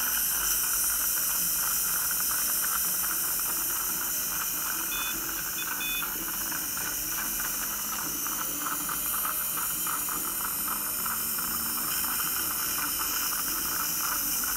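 Steady suction hiss of a dental saliva ejector drawing air and saliva from the patient's mouth, with a few short, faint electronic beeps from the LED curing light about five to six seconds in.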